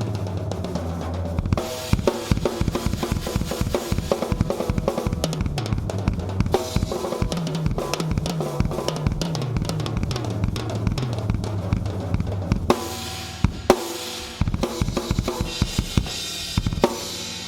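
Tama Starclassic drum kit being played in a fast, dense pattern of bass drum, snare and cymbal strokes, with a brief break about thirteen seconds in followed by a few hard accents near the end.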